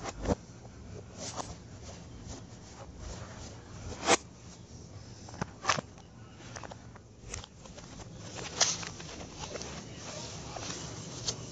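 Irregular knocks, scrapes and rustles from a camera being handled and moved about, with a few louder knocks.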